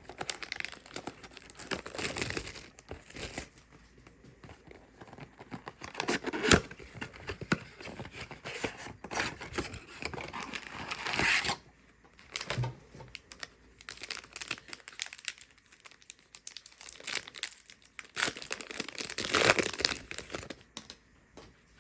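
A 2023 Donruss football blaster box and its card packs being torn open by hand, wrappers crinkling in irregular bursts with pauses between.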